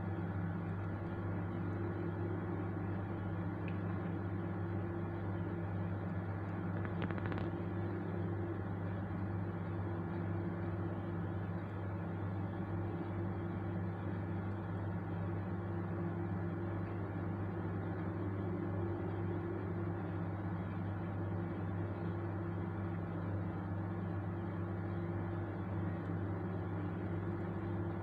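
Steady low machine hum with a buzzing edge, and a faint tap about seven seconds in.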